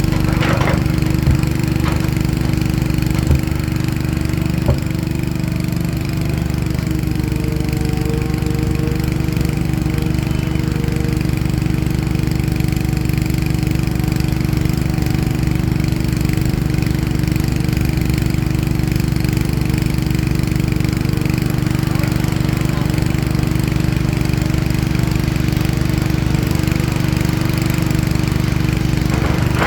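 Diesel engine of heavy earthmoving machinery running steadily, with a few sharp knocks in the first five seconds.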